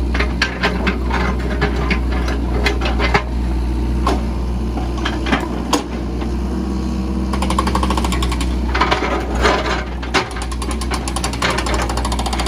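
Case 695ST backhoe loader's diesel engine running with a steady low drone, with sharp knocks and clanks scattered over it. A fast, even rattle sets in a little past halfway.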